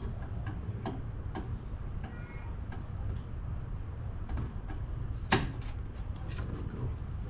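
Irregular clicks and small metal knocks from a hand wrench working the grille's 10 mm bolts, with one sharper knock about five seconds in, over a low steady rumble.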